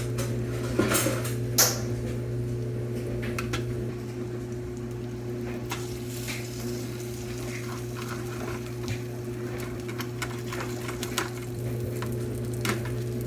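Knife and fork clicking and scraping against a plate while cutting a piece of fried ham, scattered sharp clicks with the loudest about a second and a half in, over a steady low hum.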